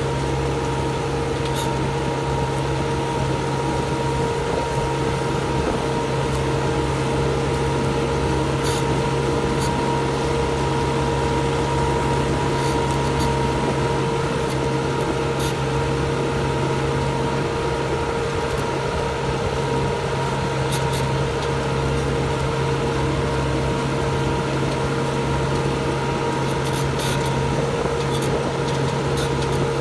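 Case JX100 tractor's diesel engine running steadily under load as it pulls a subsoiler shank through the soil, with a few short faint ticks now and then.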